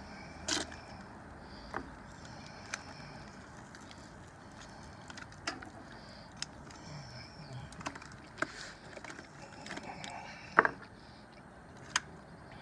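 Scattered light clicks and knocks, about seven of them at uneven intervals, the sharpest about ten and a half seconds in, over a low steady hiss.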